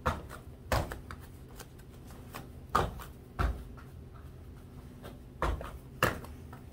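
Two-footed bunny hops landing on padded mats: six dull thuds in three pairs, each pair about two-thirds of a second apart.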